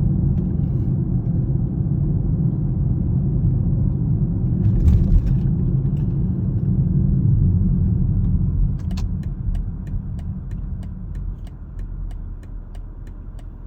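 Car road noise heard from inside the cabin, a steady low rumble of tyres and engine that eases off about nine seconds in as the car slows. A quick, even ticking starts as it slows.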